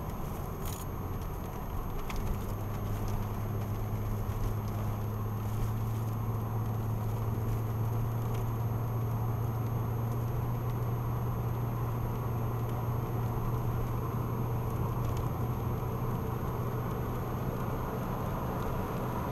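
BMW Z3 3.0's straight-six engine droning steadily while cruising, heard from inside the cabin along with tyre and wind noise. The engine tone grows stronger about two seconds in, then holds steady.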